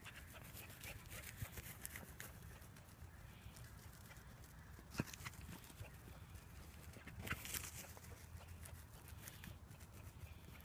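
Faint, irregular patter and rustle of dogs running on grass and dry ground litter, with a sharper knock about five seconds in.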